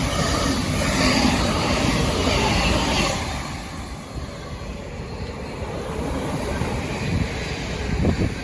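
A train passing at speed, loud for about three seconds and then dropping to a lower, steadier rumble as it draws away.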